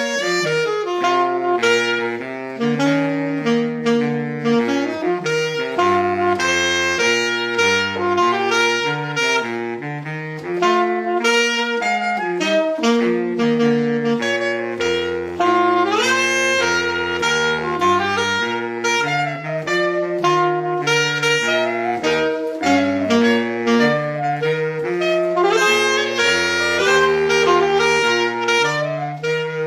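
A trio of saxophones, including a baritone saxophone on the low line, playing a piece in harmony, with the baritone's bass notes moving beneath the higher parts.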